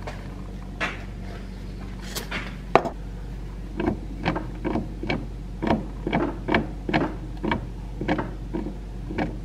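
Steering linkage of a 2013 Arctic Cat F1100 snowmobile clunking as the handlebars are rocked back and forth, a little over two clunks a second after a couple of single knocks. The clunks come from play in the linkage and its mounting, the slop behind its sloppy steering.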